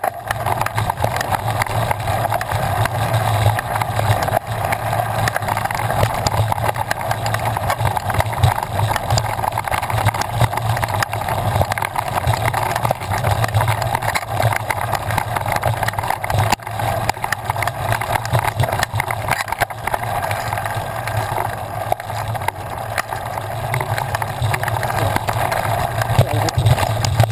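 Mountain bike ridden over a rough dirt trail, heard from a camera on the bike or rider: a steady rushing noise with constant small knocks and rattles from the bumpy ground.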